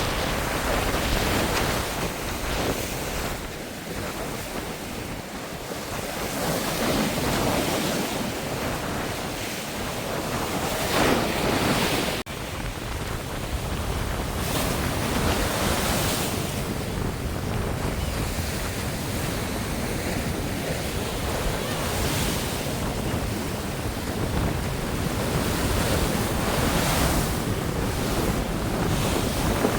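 Sea waves washing onto a sandy beach in a continuous rush that swells and eases every few seconds, with wind buffeting the microphone. A brief dropout about twelve seconds in.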